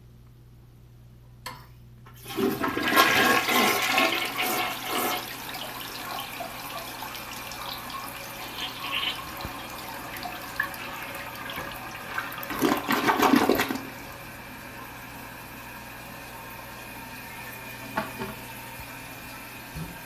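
A vintage toilet, which the owner takes for a Kilgore, being flushed. A small click is followed about two seconds in by a loud rush of water into the bowl, then a steady watery hiss, and a second loud gurgling surge about halfway through. After that a steady hiss of water runs on, with a couple of light knocks near the end.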